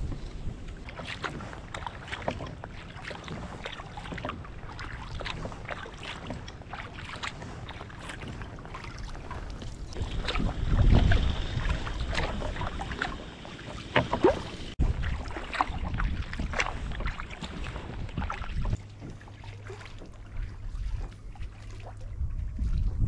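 Kayak paddle strokes splashing and dripping in the water, many irregular strokes, over low wind rumble on the microphone.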